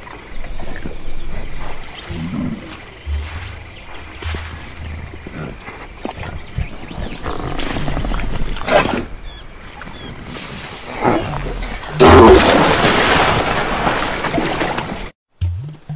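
Cartoon sound effects for a rotund giraffe: low animal grunts and groans as it strains its neck down toward the water, over steady insect chirping. About twelve seconds in comes a loud rushing splash as it tips forward and rolls into the waterhole, ending abruptly.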